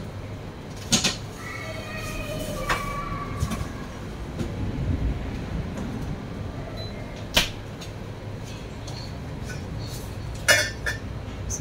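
Refrigerator door and things inside it being handled: a few sharp knocks and clunks, one of them the door shutting, over a steady low hum.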